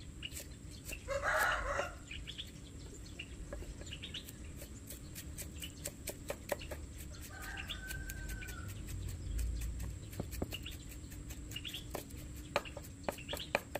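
Knife blade chopping and mincing garlic on a thick wooden chopping block, a run of quick knocks that comes thicker in places. About a second in, a chicken gives a loud call, and later a short rising-and-falling call is heard.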